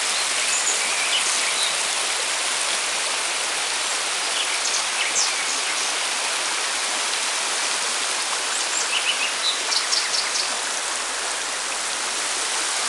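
Shallow stream rushing over stones, a steady water rush. Birds chirp briefly in short high bursts a few times, most around nine to ten seconds in.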